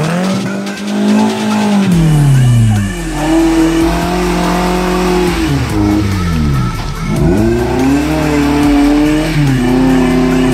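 Suzuki Katana (Jimny) 4x4 engine revving hard under load in deep mud: the revs climb, hold for about two seconds and drop, three or four times over.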